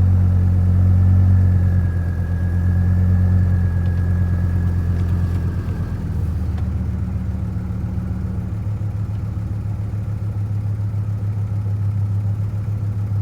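2004 GMC Canyon engine idling after starting, the crank-no-start fault cured by a new ignition switch. The idle drops and settles about two seconds in and again about six seconds in, with a faint high whine until about six seconds in.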